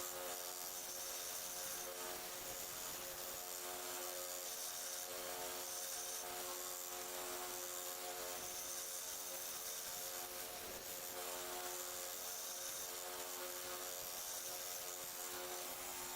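Belt sander running steadily with a steady hum and belt hiss, as metal is worked against a 400 grit belt.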